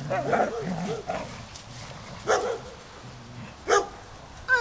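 Dogs play-fighting: pitched vocalising for about the first second, then three short sharp barks about a second apart.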